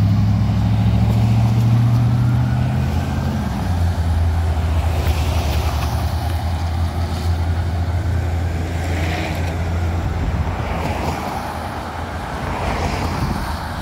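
Steady low engine hum and road noise heard from inside a car, its note dropping slightly about three and a half seconds in. An ambulance siren wails faintly in the distance, rising and falling.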